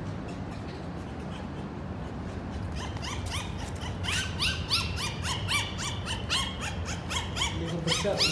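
A litter of newborn puppies squealing and whimpering: many short, high cries in quick succession, starting about three seconds in and growing louder, over a steady low hum.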